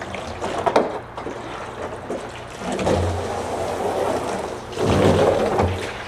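Water running and pouring into a container, coming and going in louder surges.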